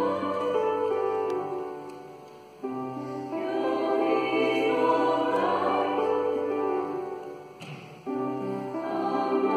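Female choir singing sustained phrases in harmony. The phrases die away about two and a half seconds in and again near the end, and each time a new one starts abruptly.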